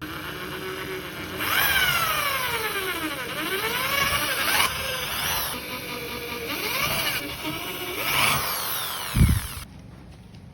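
Handheld power drill motor whining, its pitch falling and rising several times as the trigger is eased and squeezed, with a heavy thump near the end before it cuts off.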